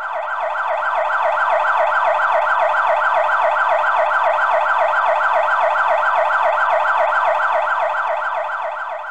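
Electronic emergency-vehicle siren in a fast yelp, its pitch sweeping rapidly up and down several times a second. It swells up at the start and fades away near the end.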